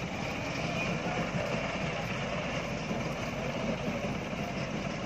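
Dump truck's diesel engine running steadily while it tows a stranded ten-wheel dump truck.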